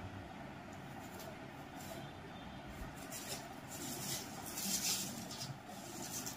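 Clear plastic packing bag being handled, rustling and crinkling in bursts from about three seconds in, loudest around five seconds, over a steady background hum.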